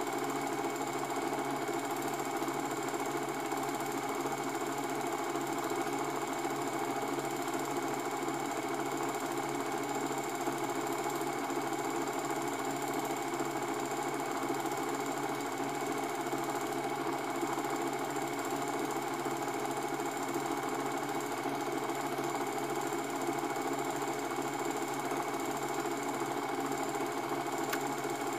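Cine film projector running, a steady unchanging mechanical noise with a few constant whining tones in it.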